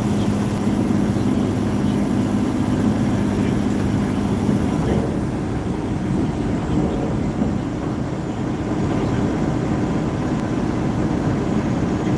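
Semi truck's diesel engine droning steadily under road and tyre noise, heard from inside the cab at highway speed.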